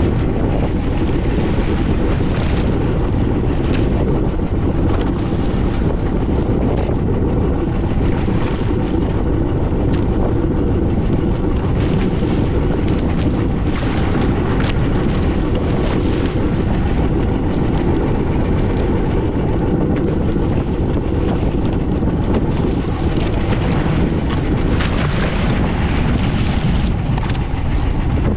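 A fishing boat underway at sea, its engine and hull noise running steadily under heavy wind buffeting on the microphone, with brief sharper knocks or slaps scattered throughout.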